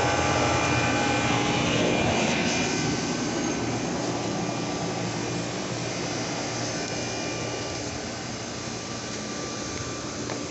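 Goodman GSH13 heat pump outdoor unit running: a steady rush of air from the condenser fan with a steady hum underneath.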